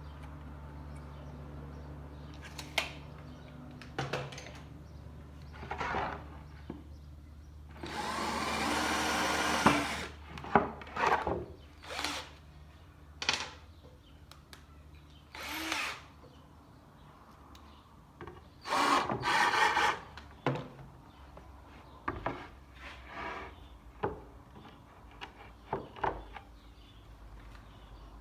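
Woodworking table circular saw running with a steady hum while wood is fed through it. There is a cut of about two seconds about eight seconds in and a shorter one near nineteen seconds, with scattered knocks of the workpiece being handled between them.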